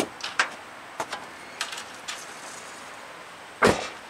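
Scattered clicks and knocks as the truck's steering is turned and the front steering knuckle with its new hub swings round, with one loud thump a little past three and a half seconds in.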